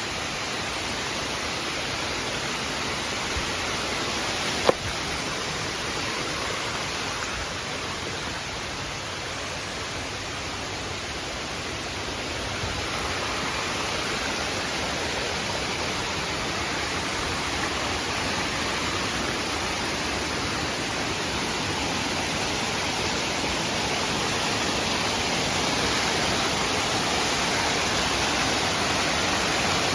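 Steady rush of water falling at a waterfall, growing slightly louder toward the end, with one sharp click about five seconds in.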